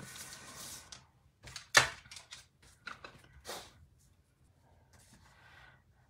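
Small wooden alphabet stamp blocks being handled and set down on a work table: a brief rustle, then a handful of sharp clicks and knocks, the loudest about two seconds in.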